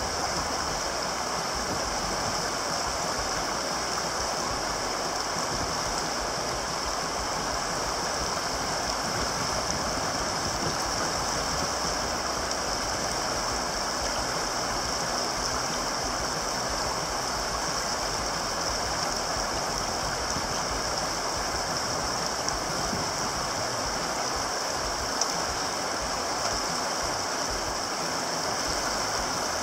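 Steady rush of whitewater rapids, fast river water pouring over rocks. There is one brief knock near the end.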